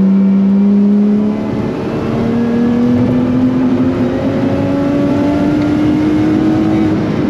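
Lotus Exige 430 Cup's supercharged 3.5-litre V6 running under steady load. It holds an even note for about a second, then climbs slowly in pitch as the revs build.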